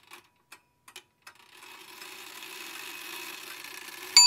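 Faint, even clock-like ticking, about two and a half ticks a second, stops. A steady whirring hiss then builds and ends in one sharp metallic ding that rings on near the end.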